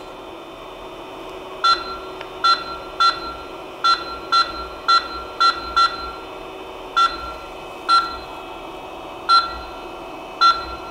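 Creality CP-01 touchscreen beeping at each tap of its move buttons: about a dozen short, identical beeps at uneven intervals, over a steady hum.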